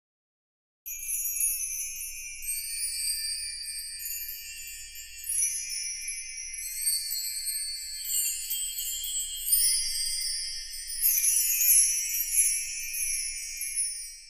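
High, tinkling bell-like chimes: several held tones that overlap and step from pitch to pitch, starting about a second in and fading out near the end.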